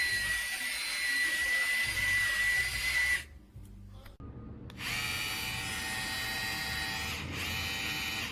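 Small battery-powered motor of an electric salt and pepper grinder running twice, a steady whir of about three seconds each time with a short pause between.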